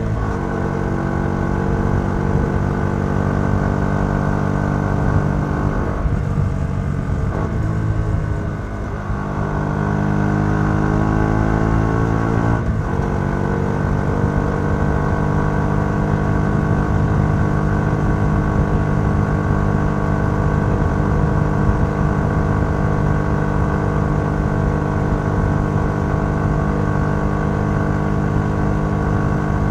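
Yamaha XSR 125's single-cylinder four-stroke engine through its stock exhaust, heard from the rider's seat while riding. The engine note drops just after the start, climbs under acceleration, then falls abruptly at an upshift a little before halfway. After that it rises slowly and settles into a steady cruise.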